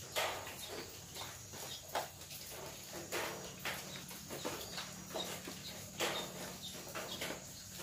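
Irregular, separate drips of rainwater tapping on a corrugated zinc roof as the rain eases off, a few louder drops standing out, just after the start, about two seconds in and about six seconds in.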